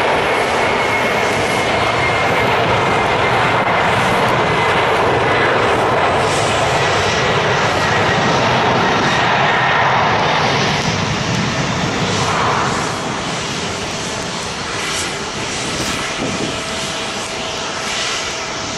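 Jet airliner engines running on the apron: a steady loud rush with a faint high whine that drifts slightly lower over the first several seconds, the noise easing a little after about eleven seconds.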